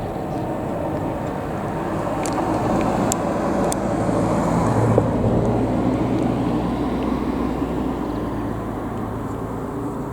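A vehicle passing by: a steady rumble that builds to a peak about halfway through and then fades.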